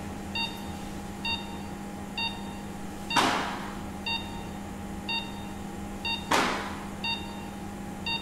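Patient monitor's pulse-oximeter beep repeating about once every 0.9 seconds, in step with a heart rate in the low sixties, over a steady hum. Two short, loud rushes of hiss, about three seconds apart, are the loudest sounds.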